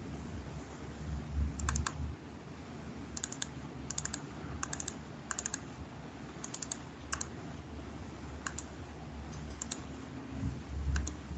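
Computer keyboard keys clicking in short irregular runs, often two or three clicks close together, over a faint steady room hum.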